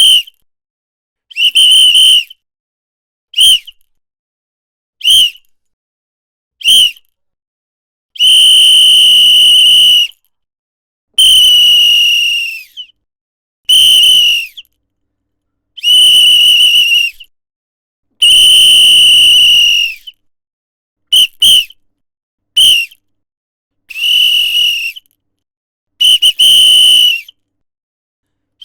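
A whistle blown loudly in a series of about a dozen high-pitched blasts, some short and sharp, others held for one to two seconds. Several of the blasts warble in a trill.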